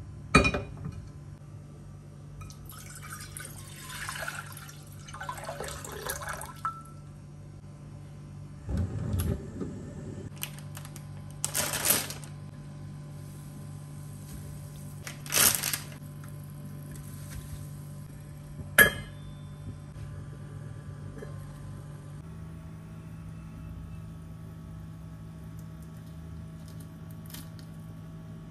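Kitchen sounds of cooking instant noodles in a saucepan on a gas hob: a knock as the pan is set down, water poured into the pan for a few seconds, then scattered clatters and a sharp click, over a steady low hum.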